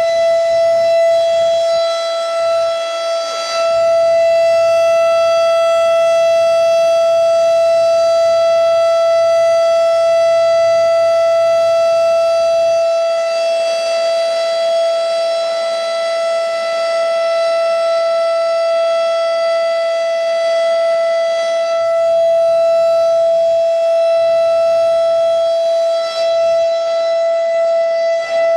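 Federal Signal Thunderbeam 12-port civil defense siren sounding a steady, high-pitched single tone during a siren test. The pitch holds level throughout, with only slight swells in loudness.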